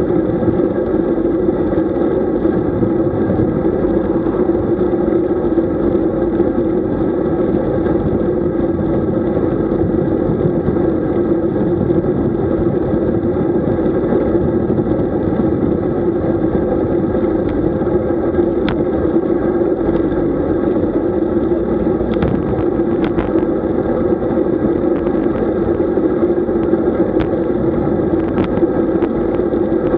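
A loud, steady drone with a constant hum, of the kind a moving vehicle makes, unchanging throughout. A few light clicks come in over the second half.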